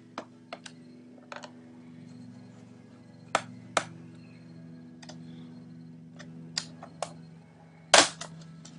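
Scattered sharp clicks and taps of screws, screwdriver and plastic case parts as a laptop is unscrewed and taken apart, about a dozen in all, with the loudest clatter near the end. A steady low hum runs underneath.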